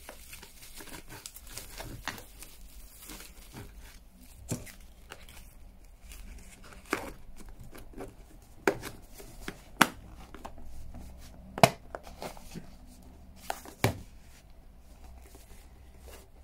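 Plastic bags crinkling as they are stuffed into a hard plastic bag dispenser, with a series of sharp clicks and knocks from the plastic parts.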